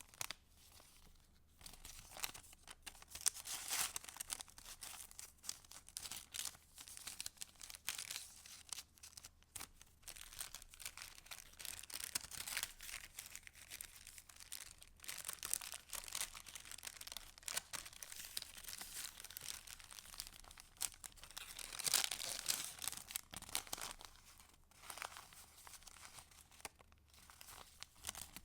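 Pages of a handmade paper junk journal being turned and handled: a continuous run of crisp paper rustles and crinkles, with louder swells a few seconds in and again later on.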